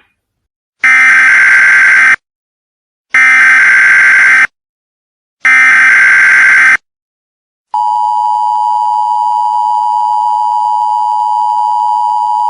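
Emergency Alert System signals: three loud screeching bursts of SAME digital data, each a little over a second long with short gaps between them, then a steady, piercing alert tone that begins a little after halfway through and holds.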